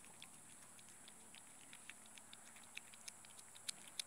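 Cats lapping and licking up raw egg: faint, irregular small wet clicks, several a second.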